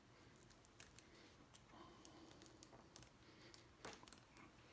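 Faint, scattered small clicks of glue releasing as the touchpad is peeled off a BMW iDrive controller, with one slightly louder click near the end.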